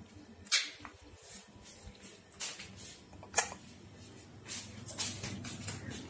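A sharp click about half a second in as an electrical plug is worked at a wall socket, followed by a few fainter clicks and knocks of handling.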